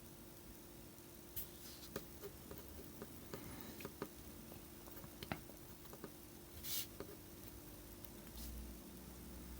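Sparse light clicks and taps from small tools and parts being handled at a workbench, with one short hiss about two-thirds of the way in. A faint steady hum sits underneath.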